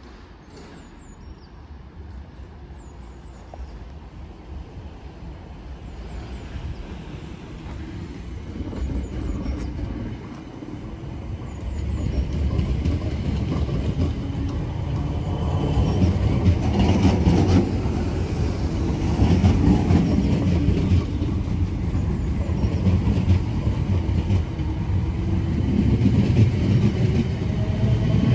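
Two coupled Class 455 electric multiple units pulling away and passing close by, the noise of the train on the rails growing steadily louder as it comes alongside.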